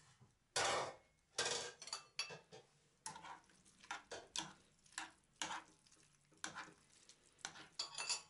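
A metal spoon stirring spaghetti into tomato sauce in a nonstick frying pan: a dozen or so uneven scrapes and clinks of the spoon against the pan.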